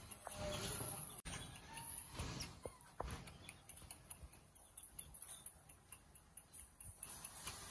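Quiet, scattered clicks and clinks of a metal wire cage being handled, with cloth rustling as a cloth is laid inside it.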